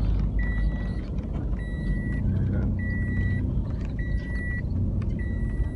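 A car moving slowly, its engine and tyre rumble heard from inside the cabin. Over it, a high electronic warning beep repeats about once a second.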